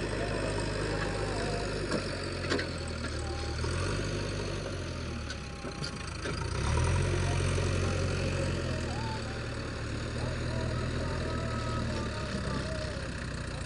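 JCB 3DX backhoe loader's diesel engine running, its pitch and level dipping about four to six seconds in and picking up again about a second and a half later as it works, with a couple of short clicks.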